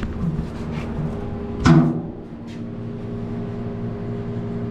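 A steady low hum with one sharp knock about one and a half seconds in.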